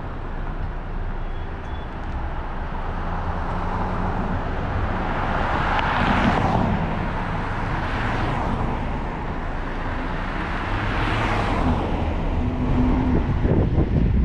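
A car driving on a town street: steady low road and engine rumble, with passing vehicles swelling up and fading away about three times.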